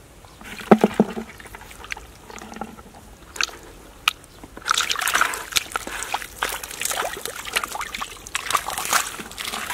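A hand sloshing and scooping muddy water and wet mud in a small dug hole. A few sharp splats about a second in, then denser, continuous splashing from about halfway.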